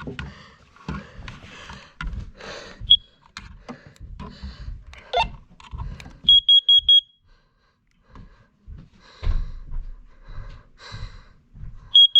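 Smoke alarm sounding under test: a quick group of about four short, high-pitched beeps about six seconds in, and the same group again at the end. Scattered knocks and bumps come in between.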